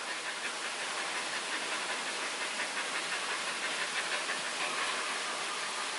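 Steady background hiss with no distinct event, the same noise bed that runs under the surrounding speech.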